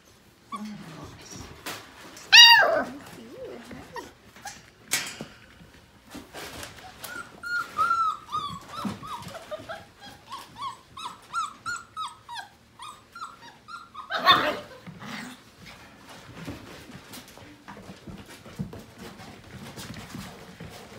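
Five-week-old Portuguese Water Dog puppies yelping and whining as they play. There is a loud yelp about two seconds in, a quick run of short high yips and whines over several seconds in the middle, and another loud yelp about two-thirds of the way through. Small taps and scuffles come in between.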